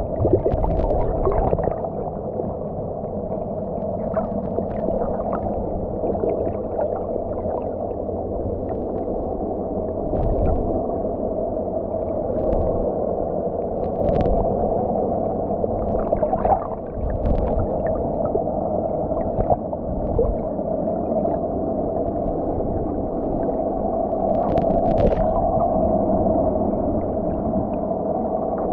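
Muffled underwater sound picked up by a submerged camera: a steady low hum with water noise, and scattered faint clicks and knocks.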